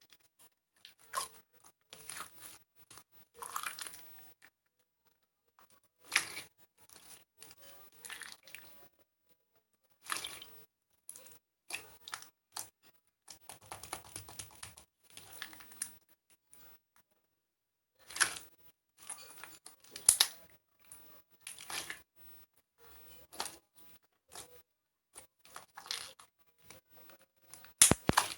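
Hands squishing, stretching and folding sequin slime, making irregular bursts of crackly, sticky sounds separated by short pauses.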